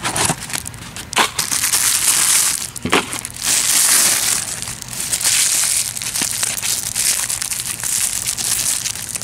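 Plastic and bubble-wrap packaging crinkling and rustling steadily as it is handled and unwrapped, with a few sharper crackles in the first three seconds.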